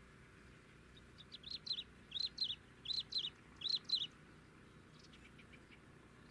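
A small bird calling: four pairs of sharp, high chirps about three-quarters of a second apart, followed by a few fainter chirps.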